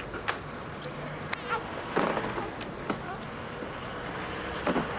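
Clunks and clicks of an ambulance's rear door being opened and people moving about in the vehicle, scattered knocks over a steady low hum.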